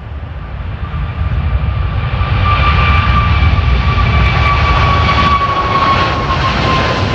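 Jet airliner's engines passing close: a rumble and hiss building up over the first few seconds, with a whine that slides slowly down in pitch as the aircraft goes by.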